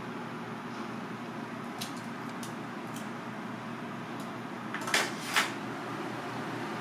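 Cooking utensils being handled at a gas grill: a few light clicks, then two sharp clacks about half a second apart, over a steady background hiss.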